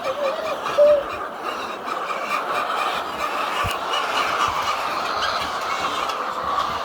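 A flock of laying hens clucking and chattering together in a poultry house, making a steady, dense din. It has a few short pitched calls in the first second and a single sharp knock a little before the midpoint.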